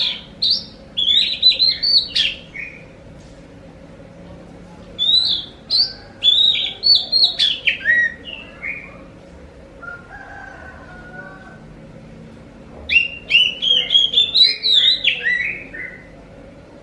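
Oriental magpie-robin (kacer) in full song: three bursts of rapid, varied high notes, each lasting a few seconds, with short pauses between them.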